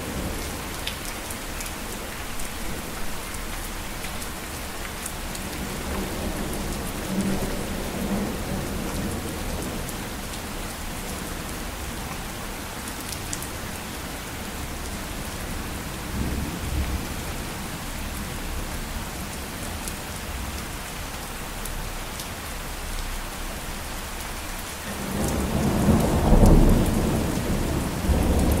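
Steady rain falling in an even hiss, with a roll of thunder that swells up near the end and becomes the loudest sound.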